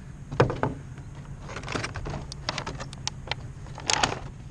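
Plastic drone packaging being handled: a clear plastic cover lifted off the tray and the controller pulled out, giving scattered clicks and crackles, the sharpest about half a second in and again near the end. A low steady hum runs underneath.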